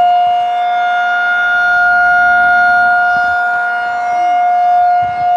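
Federal Signal 2001-SRN electromechanical tornado siren sounding a steady single tone, loud, its volume slowly swelling and fading as the rotating horn sweeps past.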